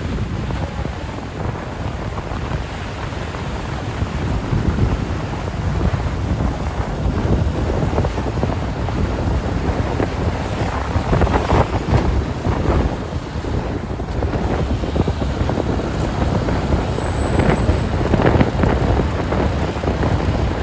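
Wind buffeting the microphone of a moving motorbike, with the low rumble of the ride underneath.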